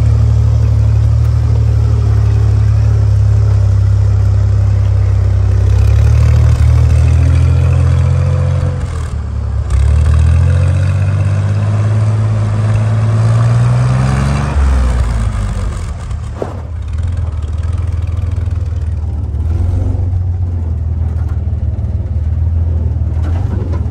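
1944 Willys Jeep's four-cylinder flathead engine running under load as it drives. About halfway through, the revs climb for several seconds and then drop back, followed by a single short clunk.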